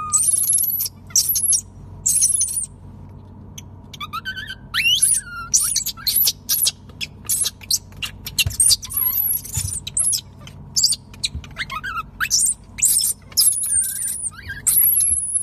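Infant macaques squealing and crying in quick runs of shrill, high-pitched calls that rise and fall, often overlapping, with brief gaps between runs.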